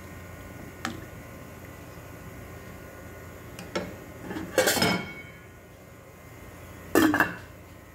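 Cookware clinking and clattering against a stainless steel soup pot: small clicks about a second in and again near four seconds, then two louder clatters with a short metallic ring, around the middle and near the end, over a steady low hum.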